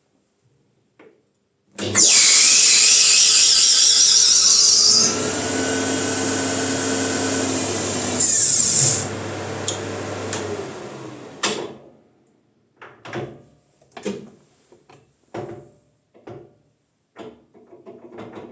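Maximat lathe motor starting up at full speed with a bicycle disc brake rotor spinning on it, as the brake pads grip the disc: a loud high squeal for about three seconds, a steadier running stretch, then a second short squeal. The lathe then slows and stops about twelve seconds in, followed by a string of short knocks and clatter.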